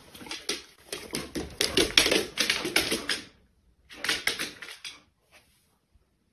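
Dog's claws clicking rapidly on a hardwood floor as it moves about, in two spells: a long run of quick taps, then a shorter one about four seconds in.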